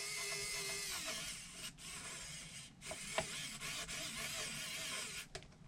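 Small cordless electric screwdriver running with a steady whine while driving small screws into the scale lift's parts. It stops about a second in, and a few light clicks follow.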